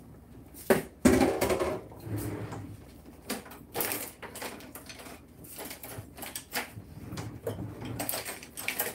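Kitchen utensils and cookware being handled: two sharp knocks about a second in, then scattered clinks and knocks of spoons and pots.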